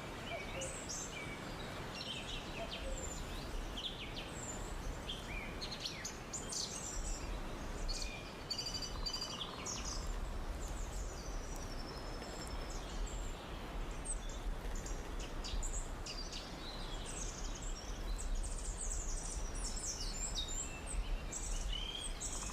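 Rainforest birds chirping and calling in many short, high notes and trills, thickest twice, over a faint steady background hiss.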